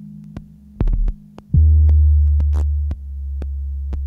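Ambient electronic music on modular synthesizer and drum machine: a deep sustained bass drone that swells loudly about one and a half seconds in and eases back near three seconds, under sharp clicks ticking about twice a second.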